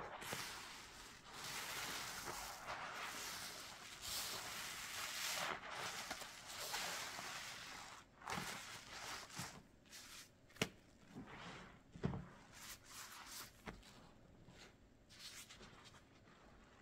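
Soapy lather of Fabuloso and dish soap being worked and squeezed, most likely in a sponge: a steady wet, fizzing squish for several seconds, then a run of separate squelches with a couple of sharp clicks, growing quieter near the end.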